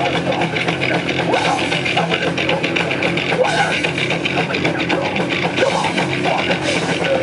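Heavy metal band playing live at full volume, with electric guitar in a dense, continuous wall of sound.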